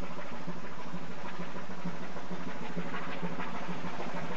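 A ship's engine running with a steady low hum, under an even hiss of wind and sea.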